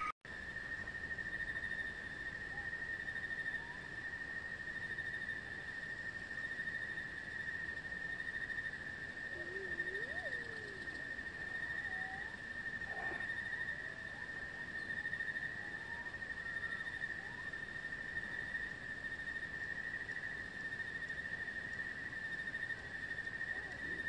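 Continuous insect chorus, one steady high trill that does not let up, with a few faint short chirps scattered through it.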